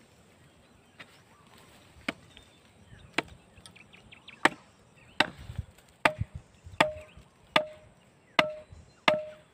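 Bamboo stake being driven into the ground with repeated blows: about ten sharp knocks, spaced out at first and then coming faster and louder. The later knocks each carry a short ringing tone.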